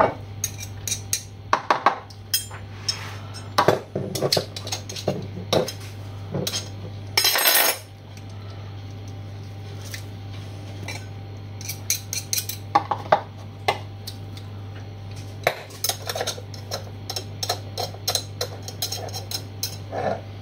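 Metal garlic press crushing a garlic clove, with a table knife scraping and tapping the crushed garlic off the press into a plastic bowl: a run of short metallic clicks, knocks and scrapes, with one longer, louder noise about seven and a half seconds in.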